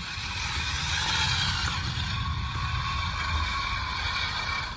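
Remote-control model Liebherr wheel loader's electric drive motors and gearboxes whirring steadily as it drives down off a trailer ramp onto dirt, with a low rumble underneath.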